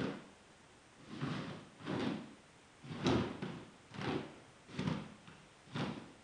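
A hairbrush dragged through long hair in repeated strokes, about seven swishes roughly a second apart, brushing out tangles.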